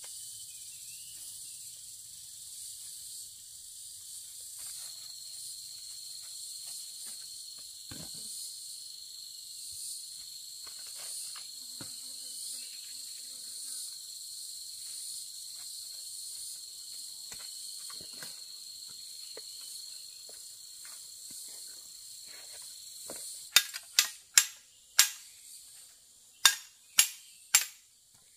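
Insects (cicadas or crickets) buzzing steadily in two high, even tones, with faint rustling of dry leaves. Near the end, a machete starts chopping wood: about eight sharp, loud blows in quick succession.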